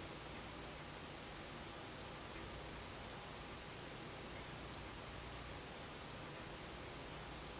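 Faint outdoor ambience: a steady hiss with short, very high-pitched chirps from small birds, scattered irregularly about once or twice a second.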